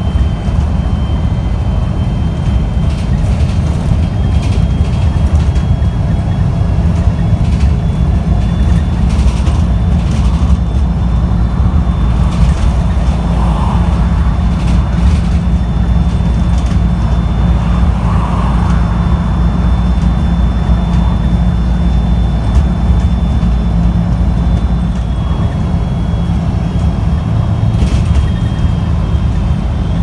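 Onboard sound of a MAN 18.220 bus under way: its MAN D0836 6.9-litre inline-six diesel running steadily, with a thin high whine above it and occasional light rattles.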